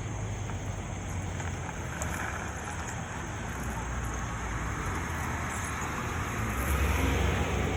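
Road traffic noise: a steady vehicle rumble with wind, growing louder near the end as a vehicle draws closer.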